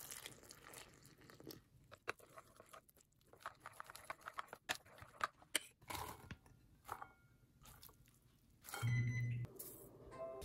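Faint, irregular small clicks and crackles of food preparation in a bowl: flour and water being mixed, and minced mushrooms and chopped vegetables dropping in. About nine seconds in, a brief low hum, louder than the rest, lasts under a second.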